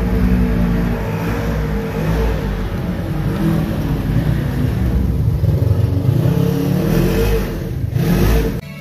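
Side-by-side UTV engines revving as the machines climb a sandy trail past close by, the pitch rising and falling with the throttle. The sound cuts off abruptly just before the end.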